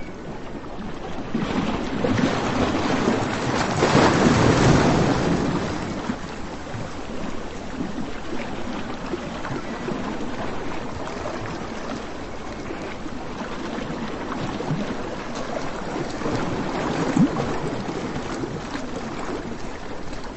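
Sea surf on a sandy beach: a wave swells and breaks a few seconds in, then a steady wash of surf.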